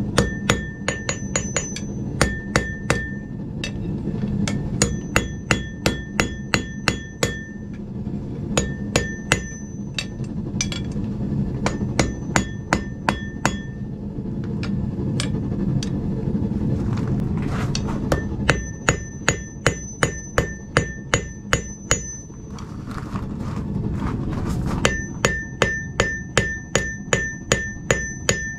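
Hand hammer striking hot steel on a steel Alec Steele anvil in runs of quick blows, about three a second, with short pauses between runs. Many blows leave a short, high ring from the anvil over a steady low rumble.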